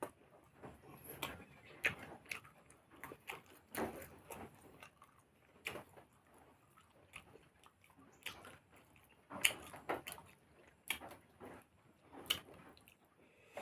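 A person chewing and biting food close to the microphone: irregular wet mouth smacks and sharp clicks, with a few louder ones spread through.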